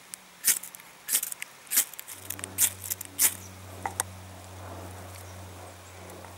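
Ferro rod scraped hard with a steel striker: about six quick, sharp scrapes over the first three seconds, with a couple of lighter ones near four seconds, throwing sparks onto fine wood shavings to catch tinder. A low steady hum comes in about two seconds in.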